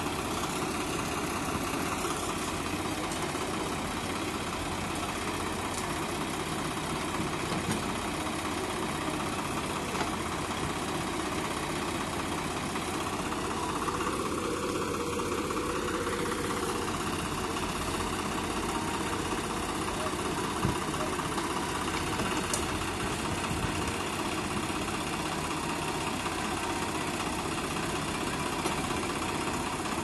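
Swaraj 744 FE tractor's three-cylinder diesel idling steadily close by, with the engine of an Escorts backhoe loader running as it digs and loads soil into the tractor's trailer.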